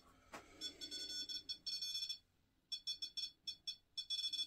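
Electronic alarm beeping: several high tones together, stuttering on and off in rapid pulses, with a short break a little past the middle.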